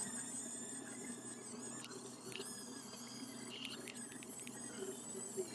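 High-pitched whine of a radio-controlled construction model's small electric motors, several steady tones that waver slightly, with a few faint clicks.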